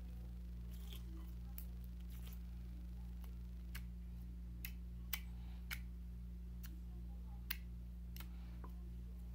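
Purple slime being squeezed and kneaded by hand in a glass bowl, giving irregular short, sharp clicks and pops. A steady low hum runs underneath.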